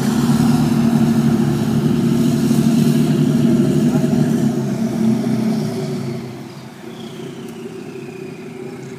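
Jet boat engine running loud and steady as the boat turns at speed close by, then fading noticeably about six seconds in as the boat heads away.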